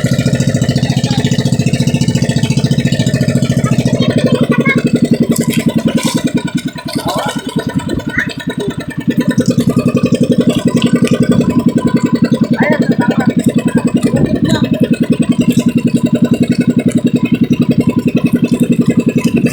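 Engine of a motorized outrigger boat (pambot) running steadily with a fast, even chug. It eases off from about six and a half to nine seconds in, then comes back up to full running.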